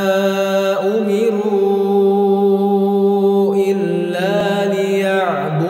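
A man's voice chanting in Arabic, holding long notes that slide slowly from one pitch to the next.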